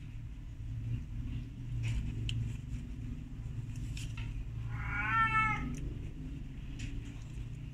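A very young kitten mews once, a single wavering high cry about five seconds in, with a few faint rustles and a low steady hum underneath.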